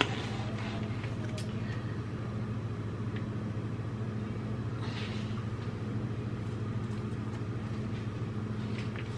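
Steady low hum of a kitchen appliance, with a few brief crinkles of a plastic bacon package being handled.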